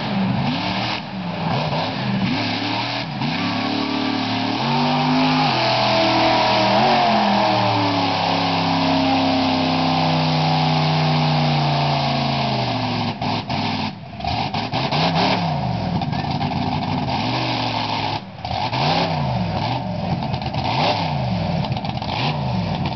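Monster truck engine revving hard as it ploughs through a mud pit: the pitch climbs, holds high for several seconds, then falls. Afterwards, with the truck sitting in the mud, the engine is blipped up and down in quick repeated revs.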